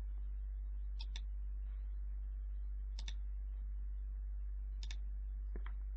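A computer mouse button clicked about five times, a second or two apart with one quick double click, while circles are selected one by one. A steady low hum runs underneath.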